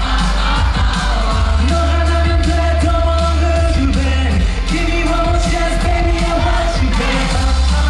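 K-pop song performed live: a loud, steady mix of heavy bass and held sung and synth notes.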